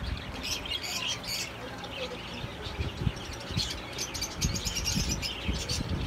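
Aviary of zebra finches and budgerigars chirping continuously, many short overlapping high calls. A few low bumps come through around the middle.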